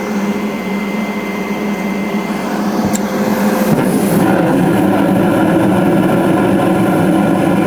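90% condensing gas furnace starting up: the draft inducer motor runs with a steady hum. A single click comes about three seconds in, and the sound grows louder about a second later as the burners light.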